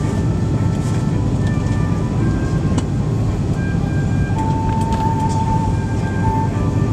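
Steady low rumble of cabin noise inside an Airbus A330-200 airliner taxiing after landing, the engines running at taxi power as the aircraft rolls along.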